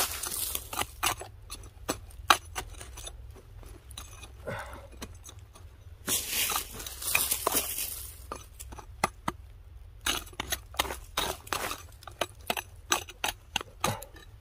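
Digging out a wild balloon-flower root by hand: irregular sharp clicks and clinks of a digging tool in the ground, with stretches of scraping and rustling.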